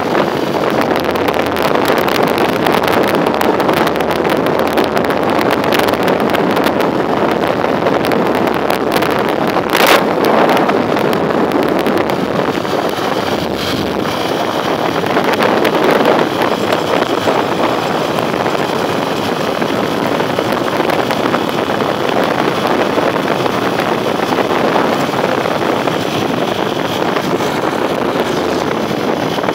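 Motorcycle ridden at road speed: a steady rush of wind over the microphone with the engine running underneath, and one short louder rush about ten seconds in.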